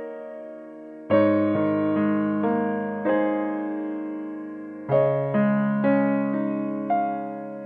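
Background piano music: slow, gentle notes and chords, each struck and left to ring and fade.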